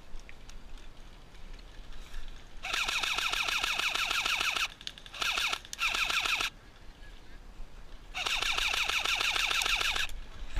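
G&G M4 electric airsoft rifle firing on full auto in four bursts of rapid clicks: a burst of about two seconds, two short bursts, then another burst of about two seconds.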